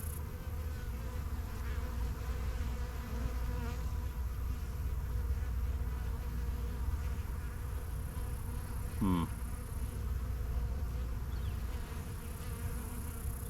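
Honey bees buzzing steadily around an opened hive, with a brief rising whine about two-thirds of the way through.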